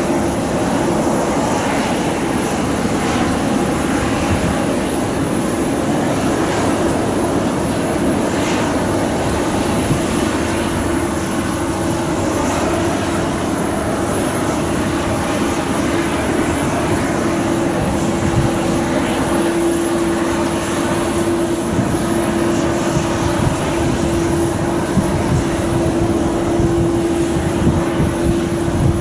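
Jet airliner noise across an airport apron: a steady drone with one constant hum that grows stronger in the second half.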